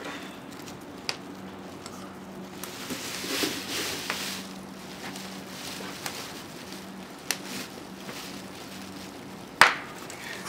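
Scattered small metallic clicks and a rustle of plastic sheeting as a whole goat is wired onto a stainless steel spit with pliers, with one sharp snap near the end. A faint steady hum runs underneath.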